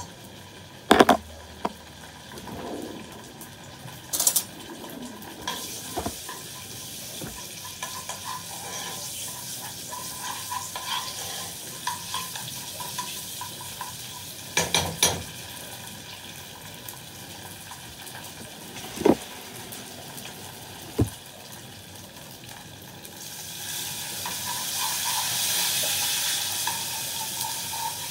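Tomato sauce sizzling in a pan while a spoon stirs it, with a few sharp knocks of the spoon against the pan. The sizzling grows louder near the end.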